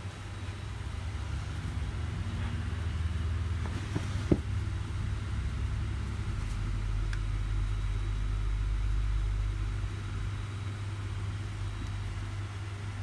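A car engine running steadily, its sound mostly low-pitched, with a single sharp click about four seconds in.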